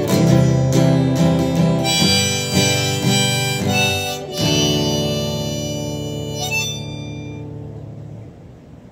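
Harmonica in a neck rack played over strummed acoustic guitar, the closing bars of the song. A few last chords are struck, and the final one rings and fades out over the last few seconds.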